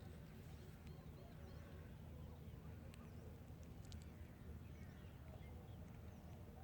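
Faint, scattered bird calls and chirps over a steady low rumble.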